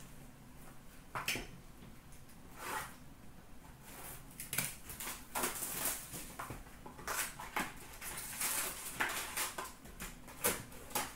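Hockey cards and their pack being handled: a string of short papery rustles and swishes as cards slide against each other, coming thicker and faster after about four seconds.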